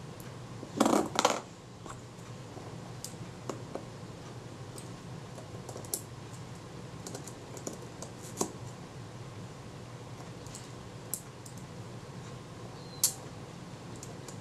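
Small metallic clicks and ticks of steel tweezers on the parts of a Synchro-Compur leaf shutter while a spring is hooked back over its post, with two louder knocks about a second in and a sharp click near the end.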